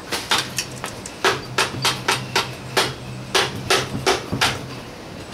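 A rapid series of sharp hammer strikes, about three a second, knocking the oil pump out of a Volkswagen Type 4 engine case. The strikes stop about four and a half seconds in.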